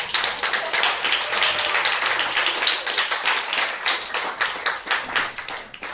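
Audience applauding: many hands clapping in a dense run that begins to thin near the end.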